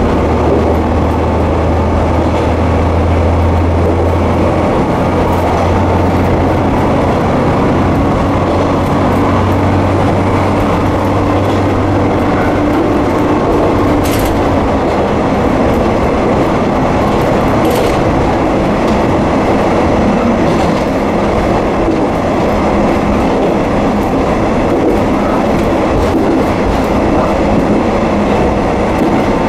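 Kanto Railway diesel railcar running along the line, heard from the cab: a steady mix of engine drone and wheel-on-rail rumble. The engine's low hum fades about twelve seconds in, leaving wheel and track noise, with a couple of sharp clicks from the track.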